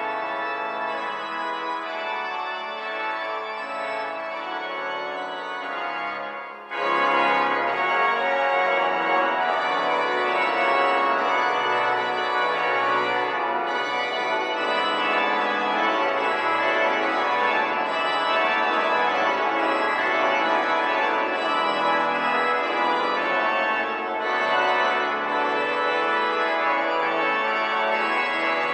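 Church organ playing sustained chords and moving lines. About six and a half seconds in there is a brief break, and then the organ comes back louder and fuller, with deep pedal bass notes underneath.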